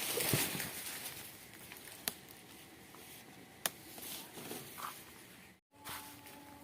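Cassava leaves rustling as they are picked by hand, with a few sharp snaps of stalks breaking, louder at first and then softer.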